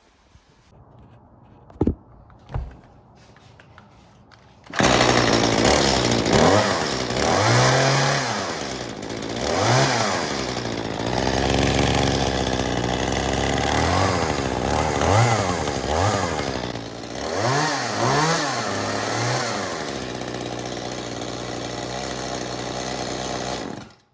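Echo CS-271 two-stroke chainsaw started after a couple of short knocks, then running and being revved up and down several times before settling to a steadier run and cutting off suddenly near the end. This is the saw's test run with its replaced fuel and oil tank.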